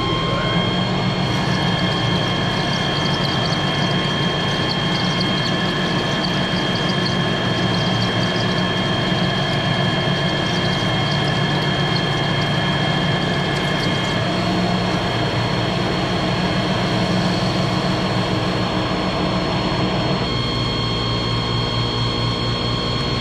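Metal lathe running steadily while turning a steel shaft, a hum with several held whining tones. Part of the whine drops out partway through, and the sound changes again near the end.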